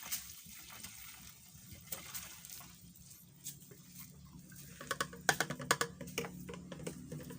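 Mixed insecticide liquid being poured into a fogging machine's tank, with small splashes and knocks. About five seconds in comes a quick series of sharp clicks and knocks from the container and tank being handled.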